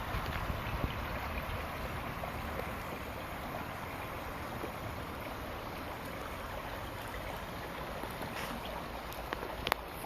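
Steady rushing noise of running water, with a few sharp clicks near the end.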